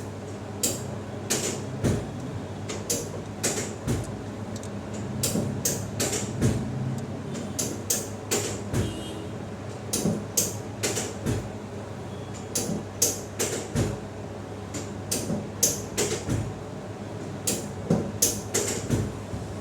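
Hand strikes and joint pops during a chiropractic full-body adjustment: a run of sharp irregular clicks and slaps, roughly one or two a second and in clusters. A steady low hum runs underneath.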